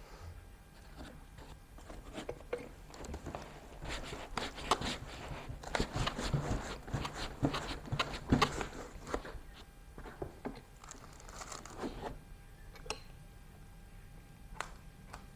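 Packaging being handled: wrapping rustling and crinkling with irregular light clicks and knocks, busiest through the middle and thinning to a few single clicks near the end.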